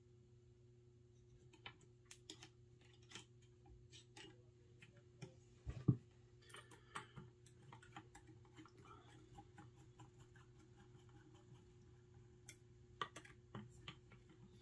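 Faint scattered clicks and taps of small metal air-rifle parts being handled during reassembly, with one louder knock about six seconds in, over a low steady hum.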